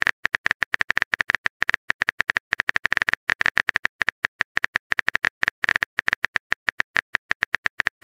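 Phone keyboard key-click sounds as a text message is typed out: a quick, uneven run of short, sharp taps, several a second.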